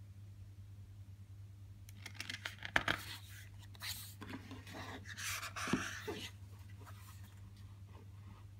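Glossy photobook pages being turned and handled: paper rustling and sliding for about four seconds in the middle, with a couple of light taps, over a faint steady low hum.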